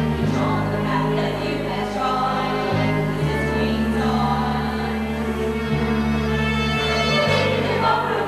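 Show choir singing a Broadway medley with instrumental accompaniment, long-held bass notes changing every few seconds beneath the voices.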